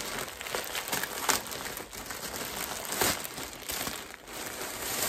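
Plastic mailer bag being opened by hand, then its plastic-wrapped contents handled: a continuous crinkling rustle of thin plastic, with two sharper, louder crackles about a second and three seconds in.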